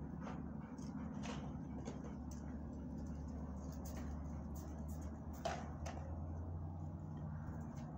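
A steady low hum, with light scattered clicks and scuffs of two dogs walking about on a gravel floor; one sharper click about five and a half seconds in.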